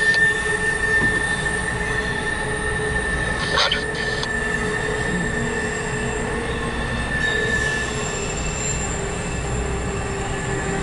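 Norfolk Southern intermodal freight train rolling past, its cars' wheels giving a steady high squeal over a continuous low rumble, with a brief clatter about three and a half seconds in.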